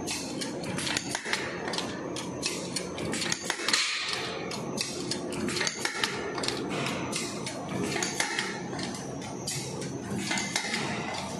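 Paper cake tray forming machine running, a dense, steady clatter of clicks and knocks from its feeding and forming mechanism as it turns out pleated paper cups.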